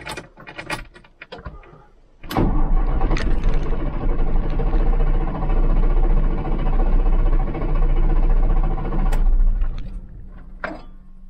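Mercedes-Benz OM366A six-cylinder diesel in a Unimog U1300L, heard from the cab, cranked on the starter for about seven seconds with the engine stop held, so it turns over without firing. It is being turned to prime the emptied oil filter housing and build oil pressure, which has not come up by the end of the crank. A few light clicks come before the cranking starts about two seconds in, and the cranking cuts off sharply.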